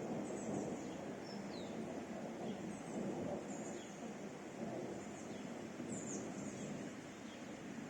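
Small birds chirping, short high chirps scattered about every second, over a steady low rushing background noise.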